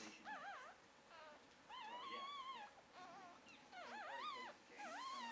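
Newborn puppies squealing and whimpering: about six short, high, wavering cries, one after another.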